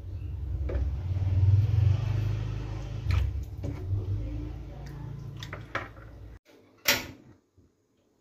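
Water scooped with a plastic dipper and poured over raw fish pieces in an aluminium pot, with a low rumble of handling noise and a few knocks. After a sudden drop to quiet, one loud sharp click from the gas stove's knob being turned to light the burner.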